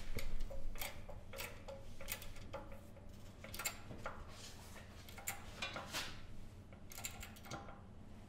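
Hydraulic shop press being worked to press a crankshaft piece into place: irregular sharp metallic clicks and knocks, about two a second, from the press and the steel drift bearing on the work.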